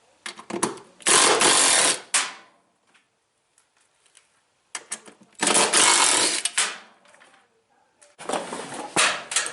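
Power tool running in three bursts of about a second each, with a few sharp clicks and knocks just before each burst.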